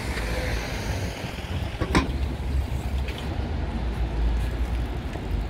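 Outdoor city street noise with a low wind rumble on the microphone, and one short sharp click about two seconds in.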